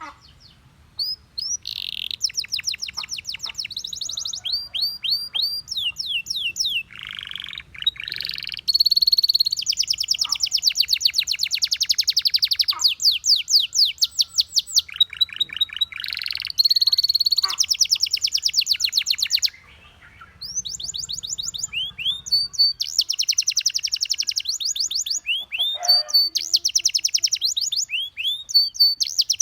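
Canary singing a long, varied song made of rapid trills: each run is a fast series of repeated notes, and the pitch and note shape change from one run to the next. There is a brief pause about two-thirds of the way through before the trilling resumes.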